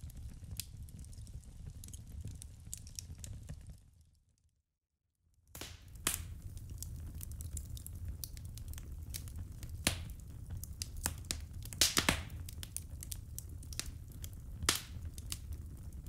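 Burning firewood and embers crackling: scattered sharp pops over a low steady rumble. The sound drops out to silence for about a second and a half a little after four seconds in, then the crackling comes back with several louder pops.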